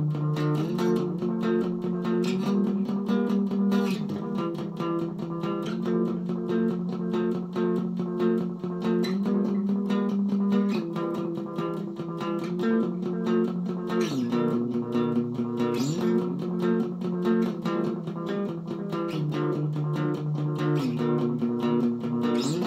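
Background instrumental music with a steady beat, its chords changing every few seconds.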